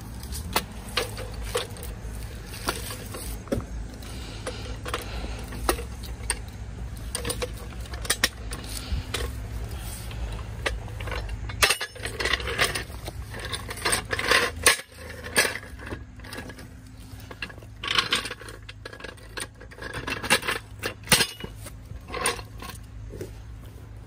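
Scattered metal clinks, clanks and scrapes from a floor jack and tire-change tools being handled, with denser clusters of clanks in the second half.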